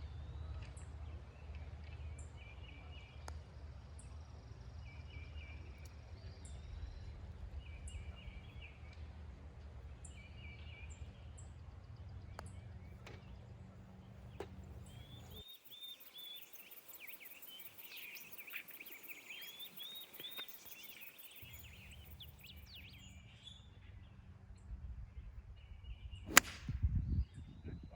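Birds singing short phrases that repeat every second or two, over a low rumble of wind on the microphone. A single sharp crack near the end is the loudest sound.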